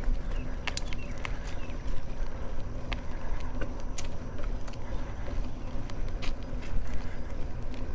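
Mountain bike rolling over cracked asphalt: a steady low rumble from the tyres and riding, with scattered sharp clicks and rattles from the bike over the bumps.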